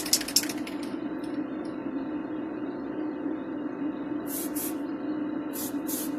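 Aerosol spray can of primer hissing in short bursts, with a few quick sprays in the second half, over a steady low hum.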